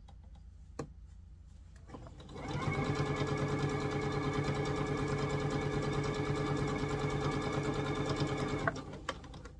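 Computerised electric sewing machine stitching a seam in one steady run of about six seconds. It starts about two seconds in and stops near the end. A single click comes shortly before it starts.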